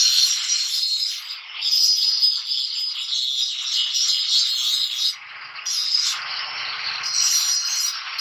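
Small electric angle grinder grinding a steel knife blade: a harsh, hissing scrape of disc on metal that drops away briefly a few times.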